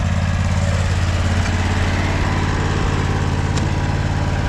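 Simplicity 16 hp riding lawn mower's engine running steadily, warmed up.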